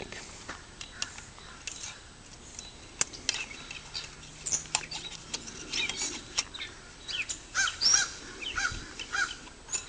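Small scattered clicks and taps of a hooked spring wire being worked through a fuel tank's fuel-line hole and out its fill opening, with birds calling in the background; near the end a bird gives a run of four quick chirps.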